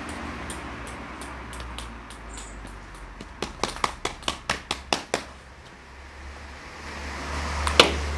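Table tennis rally: the ball clicks quickly off paddles and table, about five hits a second for nearly two seconds in the middle, then one louder hit near the end.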